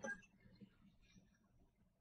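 Near silence: room tone, with a faint brief knock at the very start.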